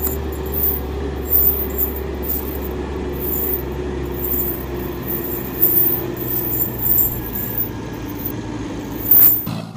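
Heavy vehicle engine running steadily, a low rumble with a steady hum that sinks slowly in pitch.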